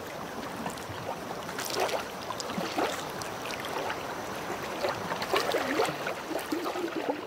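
Water lapping and splashing against a canoe on a lake, with small drips and gurgles.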